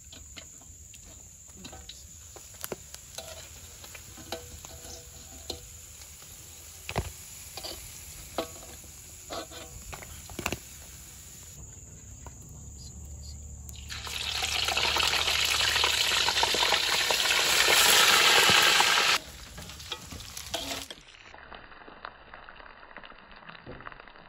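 Fish frying in hot oil: scattered pops and crackles over a low sizzle, then a loud burst of sizzling for about five seconds that cuts off suddenly.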